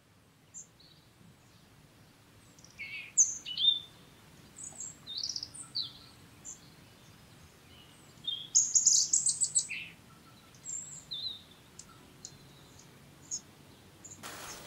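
Woodland birds singing and calling: scattered short chirps and whistles, with a fast run of notes about nine seconds in. A steady rustle begins near the end.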